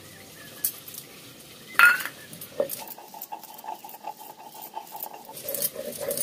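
A sharp clack about two seconds in, then a stone roller scraping back and forth on a stone grinding slab (sil-batta) as soaked mustard seeds and cumin are ground into paste, the strokes growing busier near the end.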